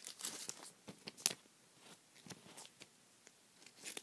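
Plastic card sleeves and trading cards handled by hand: light crinkles and small clicks, with a sharper click about a second in.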